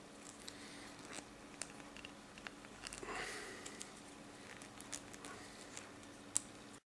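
Faint small plastic clicks and scraping as fingers twist and pry at LEGO Technic pieces, with a denser scratchy patch about halfway and one sharper, louder click near the end.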